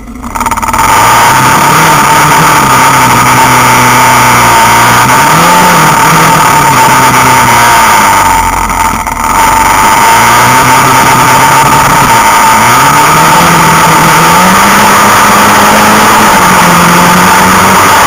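Loud ATV engines running, their pitch rising and falling several times as the riders throttle up and ease off, with a brief lull about halfway. A steady noise runs under the engines throughout.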